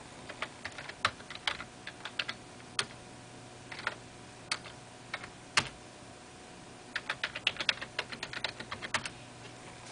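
Typing on a computer keyboard: a command keyed in short runs of clicks with a few separate key presses, then a fast run of keystrokes near the end.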